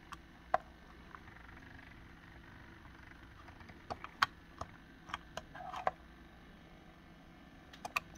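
Faint steady room hum with a scattering of small sharp clicks and taps: one about half a second in, a cluster in the middle, and two near the end.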